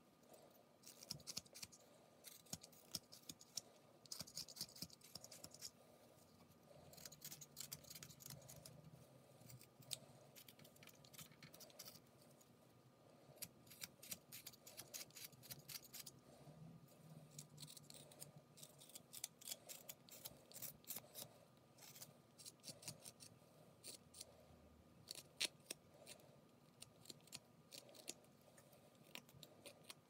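Whittling knife slicing thin shavings off a small hand-held wood carving: a long run of short, crisp cuts and scrapes, often several in quick succession.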